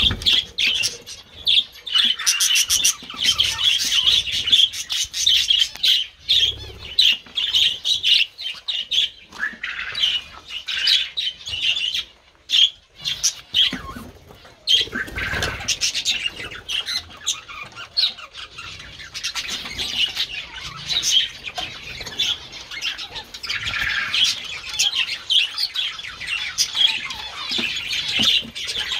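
A flock of small aviary birds chirping and chattering almost without pause, with a short lull about twelve seconds in.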